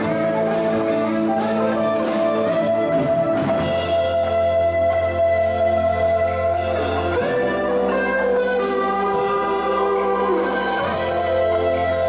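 A live instrumental band of electric guitar, electric bass, keyboard and drum kit playing. Long held bass notes change every three or four seconds under the guitar and keyboard lines.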